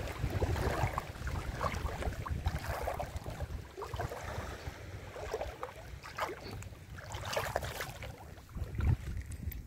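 Wind buffeting the microphone with a steady low rumble, over small waves lapping at a rocky shore, with scattered short clicks and rustles.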